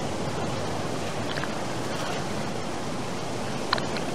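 Steady rushing water noise heard through a camera held underwater, with a faint click near the end.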